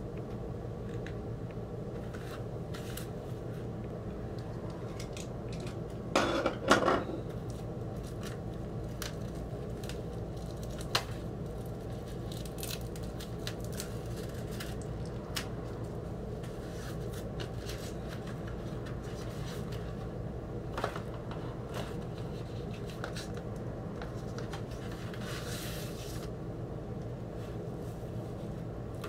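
Plastic shrink wrap crinkling and tearing as it is pulled off a vinyl LP jacket, with a louder burst of rustling about six seconds in, then scattered clicks and rustles of the record sleeves being handled, over a steady low hum.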